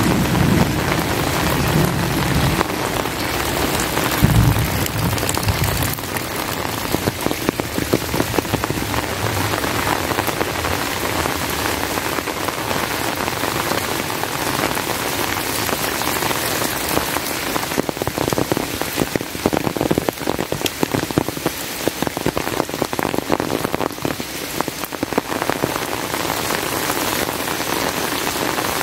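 Heavy rain falling steadily, a dense patter of close drops. A low rumble of thunder trails off in the first few seconds, swelling once more about four seconds in before dying away.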